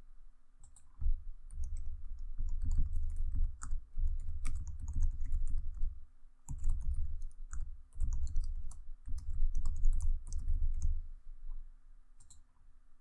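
Typing on a computer keyboard in bursts of key clicks with dull thuds, entering text into a form; the typing stops near the end. A faint steady hum runs underneath.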